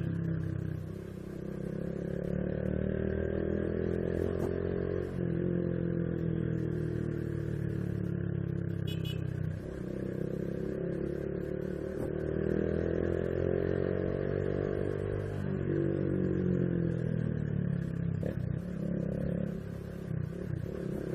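Honda Biz 125's single-cylinder engine accelerating through the gears while riding: the pitch climbs, drops back at each shift about 5, 10 and 16 seconds in, then climbs again.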